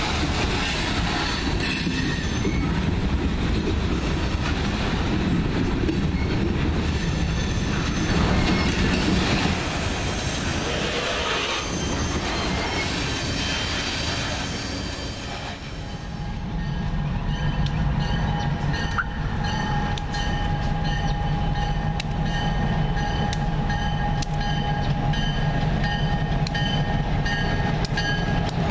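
Loaded freight cars rolling past close by, a dense rattling and clanking of wheels and couplers on the rails. About halfway through this gives way to diesel switcher locomotives running as they approach: a steady engine hum with a higher whine over it and light clicks of wheels over rail joints.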